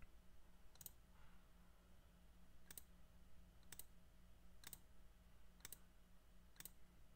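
Computer mouse button clicking, six short, faint clicks about a second apart, over a faint steady low hum.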